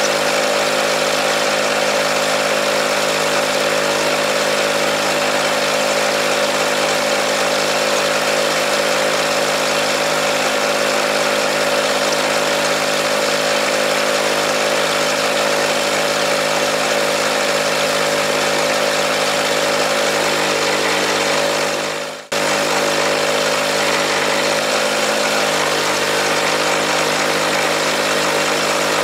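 A steady engine-like drone running evenly; it fades and cuts out for a moment about three-quarters of the way through, then comes straight back.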